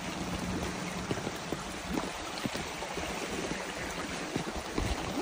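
Muddy floodwater flowing across the floor of a building: a steady wash of running water with small scattered splashes.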